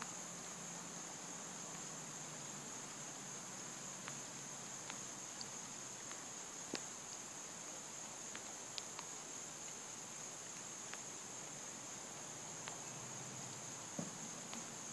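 Crickets trilling in a steady high chorus. A few faint scattered clicks, and a soft knock near the end.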